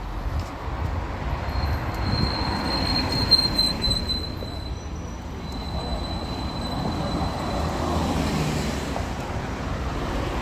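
City street ambience: a steady low traffic rumble, with a thin, high, steady squeal that starts about a second and a half in and fades out after about seven seconds.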